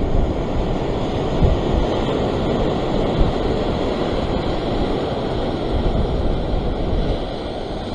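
Ocean surf breaking and washing over a rock ledge, a steady rush of water, with wind buffeting the microphone in a few low thumps.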